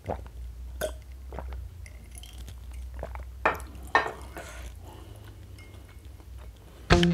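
Someone drinking from a glass mug, with swallowing and small mouth and lip noises, then the glass set down on the table with a sharp knock about four seconds in. Music comes in loudly right at the end.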